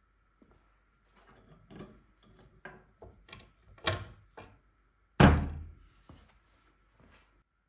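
Irregular light knocks and clunks, about a dozen over four seconds, then one loud thud about five seconds in that rings briefly, followed by a few faint knocks.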